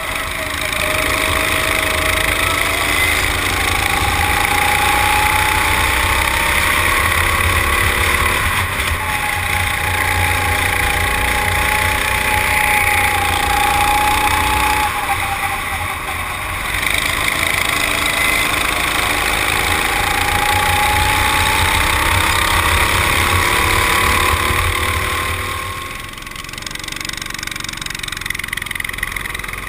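Rental go-kart's small engine heard from onboard at full throttle, its pitch rising and falling, with two brief dips as the throttle is lifted, over a steady low rumble of wind on the microphone. About 26 seconds in the rumble stops and the engine drops to a quieter, lower note as the kart slows.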